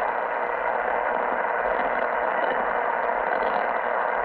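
Bendix King KR-86 ADF receiver tuned to a 360 kHz non-directional beacon, playing steady static hiss through a speaker, filtered by a DSP. No clear beacon tone is heard.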